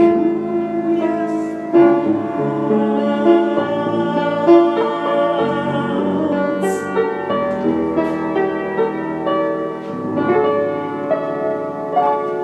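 Keyboard accompaniment playing the instrumental closing bars of a song, with sustained chords and a melody moving note by note.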